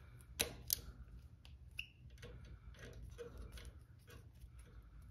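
Wire cutters snipping and working on the thin orange and yellow lead wires of a zone valve motor: two sharp clicks close together near the start, then fainter clicks and light handling of the tool.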